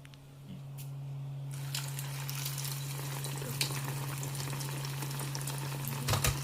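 Egg-coated beef chaps frying in hot oil: a dense crackling sizzle that starts suddenly about a second and a half in and keeps going, with a couple of knocks over a steady low hum.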